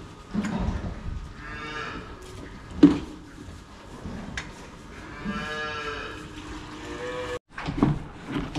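Young dairy calves mooing at milk-feeding time: a short call and then a longer one a few seconds later. A sharp knock about three seconds in.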